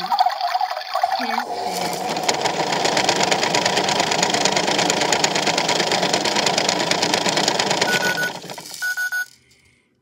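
Toy washing machine's small motor whirring as it turns the drum, with the beads in the drum rattling fast and steadily. The whirr dies down about eight seconds in, two short high beeps sound a second apart, and it stops about nine seconds in.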